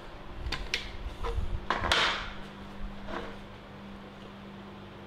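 Hands handling gear on a steel welding table: a few sharp clicks and a louder knock about two seconds in, over a steady low hum.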